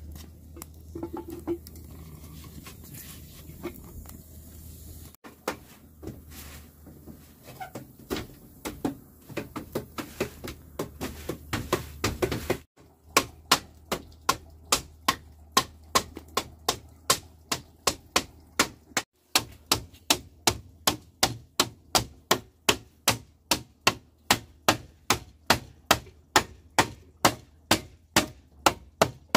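Hammer blows striking in a steady rhythm of about two a second, after a first stretch of scattered, irregular knocks and handling noise.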